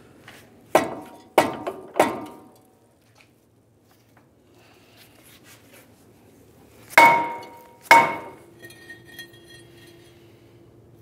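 Mallet blows on the back of a seized front brake rotor: three strikes about a second in, then two louder ones about seven seconds in, each leaving a brief metallic ring from the rotor. The rotor is rusted onto the hub and is being knocked free.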